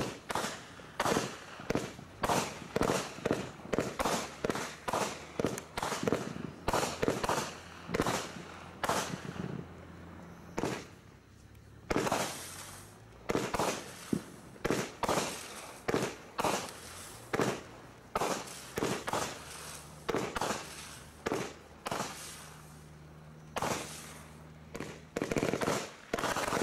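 Bright Star Strike Force consumer barrage pack firing: a rapid series of shots and aerial bursts, about two a second, easing off briefly between barrages.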